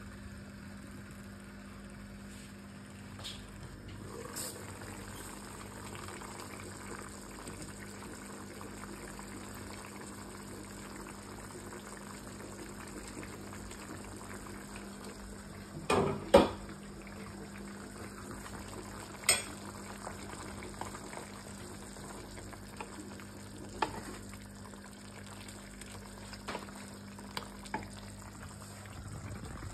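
Beef rendang stew simmering in a covered pan, a steady bubbling hiss over a steady low hum. About sixteen seconds in, the glass lid clanks twice against the pan as it is lifted off, with another clink a few seconds later. Light knocks of a wooden spoon against the pan follow near the end.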